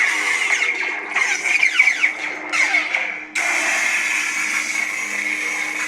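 Lightsaber playing Kyberphonic's Anakin green-saber sound font: a steady electric hum with repeated swing swooshes that bend down in pitch as the blade is waved. About three and a half seconds in, a sudden harsher, louder buzz starts and holds on.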